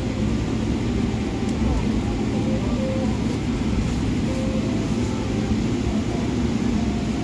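Steady drone of an airliner cabin in flight, with faint, indistinct voices under it.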